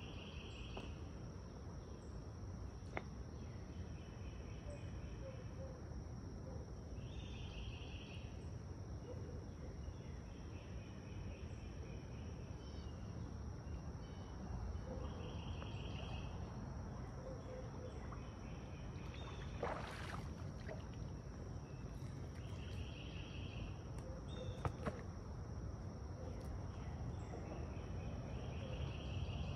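Insects calling: a steady high drone, with short buzzing calls repeating every few seconds, over a low outdoor rumble. A few sharp clicks and knocks stand out, the clearest about twenty seconds in.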